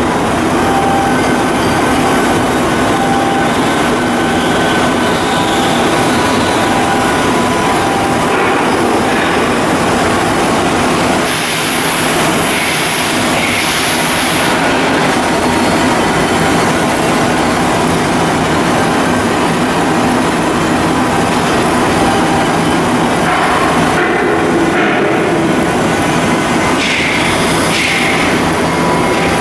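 Loud, steady machinery noise with a few faint steady tones running through it, and a brief high hiss about twelve seconds in.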